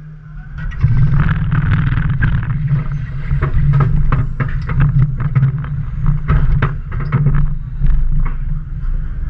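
Steel roller coaster train pulling out of the station: a low mechanical rumble from the wheels and station drive sets in suddenly about a second in and runs on steadily, with many sharp clicks and clanks as the cars roll over the track toward the lift hill.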